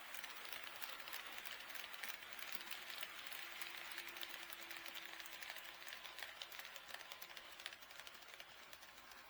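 HO-scale model train running on KATO Unitrack: a faint, steady rolling rattle with many small clicks from the wheels on the rails, fading over the last few seconds.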